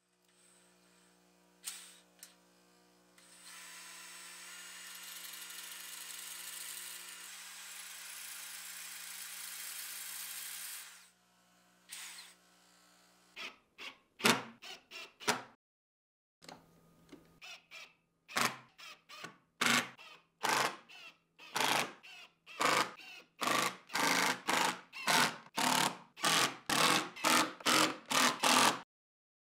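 A cordless drill drilling pilot holes into plywood. It runs in one long steady stretch, then in many short trigger bursts that come faster and louder toward the end.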